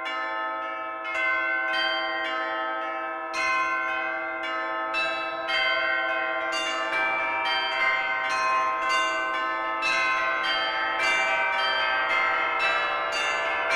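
Bells ringing in a peal of struck notes, each note ringing on and overlapping the next. The strikes come faster from about three seconds in and build into a dense, layered ringing.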